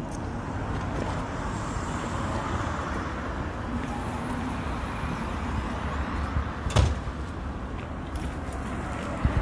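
Tourist road train rolling slowly past over cobblestones: a steady low running rumble from its tractor and wheels, with a single sharp knock about seven seconds in.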